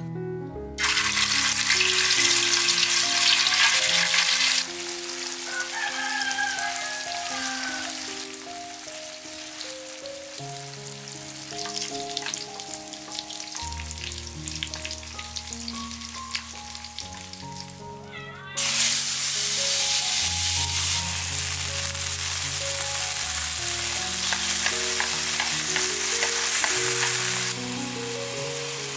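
Hot oil sizzling in a metal pan as tofu pieces fry, later chopped tomatoes frying and being stirred. The sizzle comes in loud about a second in, softens, and turns loud again a little past the middle. Soft background music plays underneath.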